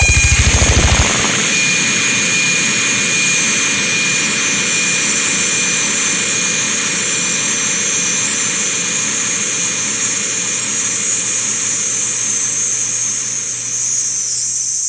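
Dense chorus of many common true katydids (Pterophylla camellifolia), their wing-rubbed calls merging into a loud, steady, high hiss. A brief low rumble sounds in the first second.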